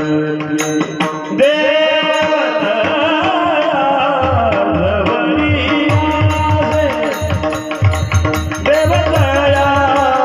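Warkari kirtan singing: a singer holds and ornaments long, wavering notes of a devotional chant over steady instrumental drone, with regular hand-drum strokes and small cymbal ticks keeping the beat.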